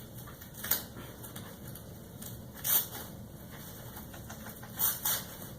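Rustling of a disposable diaper being handled during a diaper change, with four short, sharp crackles.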